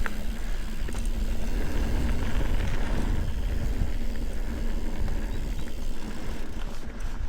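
Mountain bike riding on a dirt trail: tyres rolling and the bike rattling, under a steady low rumble of wind and vibration on the microphone.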